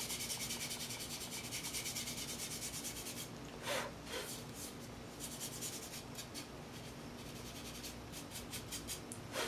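A small pad rubbing over the dry surface of an unfired greenware clay pot to clean it: rapid scratchy strokes, about ten a second, for the first three seconds, then slower, scattered strokes. About four seconds in comes a short puff of breath, blowing the clay dust off the pot.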